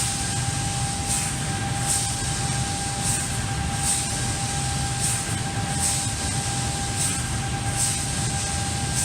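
Amada LCG 3015 CNC laser cutter (3,500 W) running a cutting program: a steady machine hum with a constant whine, and short hissing bursts about once a second.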